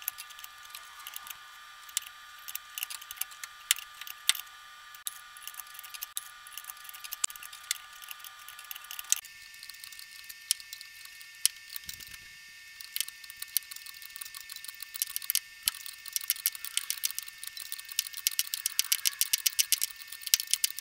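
Ratchet pawl clicking in short strokes as the ratchet drives a forcing sleeve that presses a timing-chain sprocket onto a Cadillac 472 V8's crankshaft. The clicks are spaced and irregular at first, then come faster and more evenly near the end.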